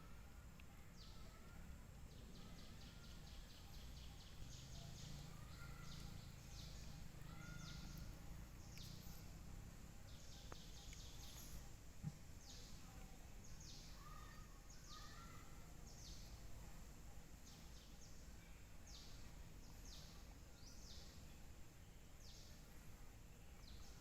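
Faint outdoor ambience: short high calls repeat about once a second, with scattered bird chirps and a low rumble underneath. A single sharp click sounds about halfway through.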